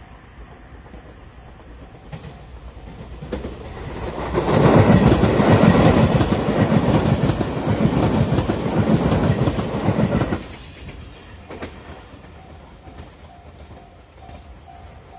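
Shiokaze limited express electric train passing over a level crossing: its wheels clatter over the rail joints, loud for about six seconds from about four seconds in, then cutting off sharply as the train clears. A level crossing bell rings steadily before and after the train.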